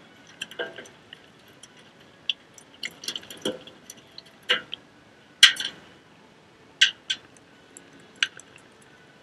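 Live mackerel flopping in a stainless steel sink, its body slapping the metal in irregular sharp taps and clicks, the loudest about halfway through.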